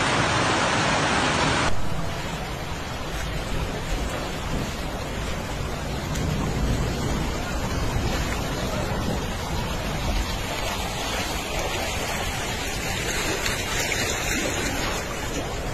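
Fast muddy floodwater rushing past, a loud steady wash of noise that cuts off suddenly under two seconds in. After the cut, a quieter steady wash of shallow floodwater running over the ground, with a low rumble.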